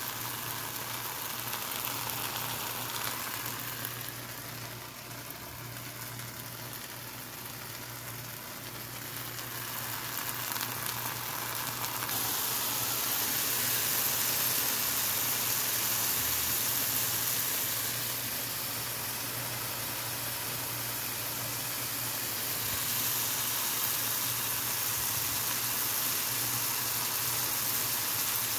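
Diced nopales sizzling in oil in a skillet: a steady frying hiss that grows louder about twelve seconds in. A steady low hum runs underneath.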